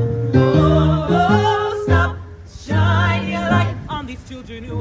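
Musical-theatre ensemble singing in harmony over sustained low accompaniment, holding long notes with vibrato and breaking off briefly about two seconds in before the next phrase.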